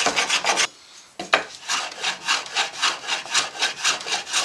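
Small hand plane shaving wood on a guitar body in quick, short strokes, about three a second. The strokes stop briefly under a second in, a sharp knock follows, and then the strokes resume.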